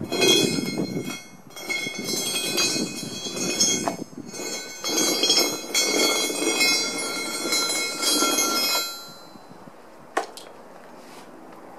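A short length of steel railway rail dragged by a strap across gravelly asphalt: a grinding scrape with the rail's metallic ringing over it, in three pulls, stopping about nine seconds in. A single sharp click follows about a second later.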